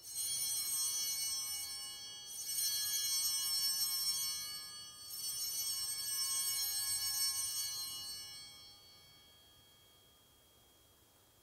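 Altar bells rung three times, each ring a cluster of high tones, the last dying away about eight to ten seconds in: the signal for the elevation of the consecrated host.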